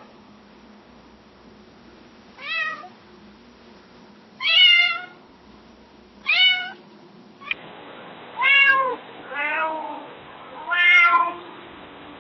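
Domestic cat meowing: three short meows about two seconds apart, then, after a cut to a second recording with more background hiss, three more meows in quicker succession.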